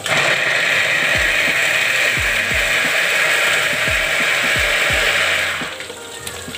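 Small electric mini food chopper grinding chillies and spices into a paste: a loud, steady motor-and-blade whir that sounds like a wood-cutting machine. It starts at once and cuts off about five and a half seconds in.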